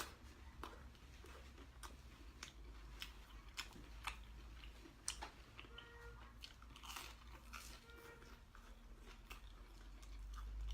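Close-miked chewing: irregular crisp crunches and mouth clicks as chicken rings are bitten and chewed, over a low steady hum.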